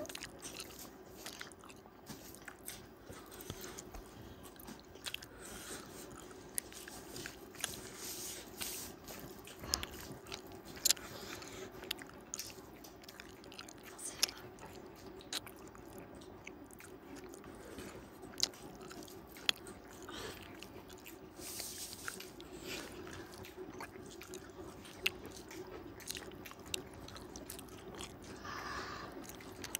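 A person chewing and biting food close to the microphone, with many short sharp crunchy clicks scattered throughout, over a steady low hum.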